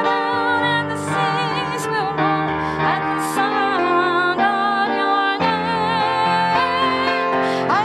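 Music: a woman singing with vibrato over sustained keyboard chords.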